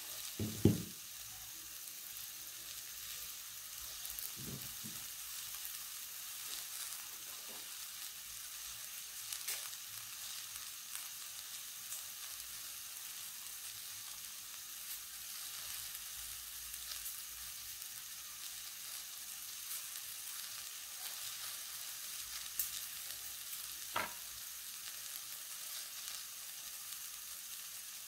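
Dried red chillies, onion and tomato frying in a little oil in a metal kadai: a steady, soft sizzle. A brief thump just after the start and a sharp tick about 24 seconds in.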